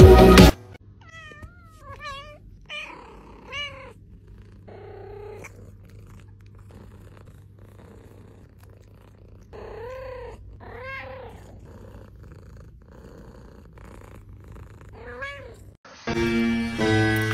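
Cat purring steadily while being scratched under the chin, with about half a dozen short, wavering meows scattered through it. Music plays briefly at the start and starts again near the end.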